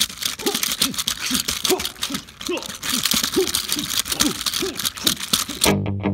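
Rock 'em Sock 'em Robots plastic boxing toy in a flurry of punches: rapid plastic clacking and knocking from the swinging arms and hand controls, with short squeaks about twice a second. Near the end it stops and music begins.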